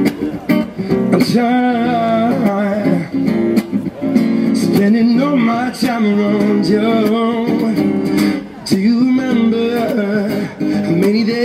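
A song with strummed acoustic guitar and a singing voice, used as background music.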